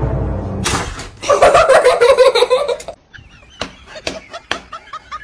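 A sudden sharp clack, then a loud burst of sound lasting about a second and a half. After a brief hush, a person is snickering, with several sharp clicks.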